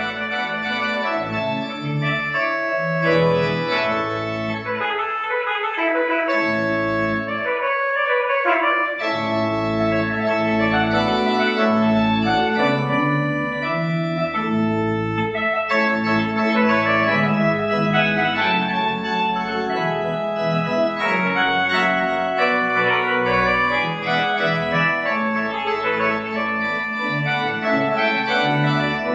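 Pipe organ playing the postlude: sustained full chords with moving lines over low pedal notes, thinning for a few seconds about five seconds in before the full sound returns.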